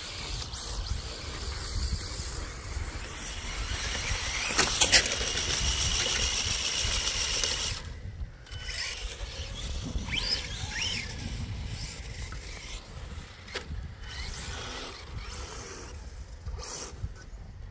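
Electric RC cars running at speed. A louder pass with a steady high motor whine and a sharp knock comes about four seconds in and cuts off suddenly about four seconds later. Shorter rising and falling motor whines follow as the cars accelerate and slow.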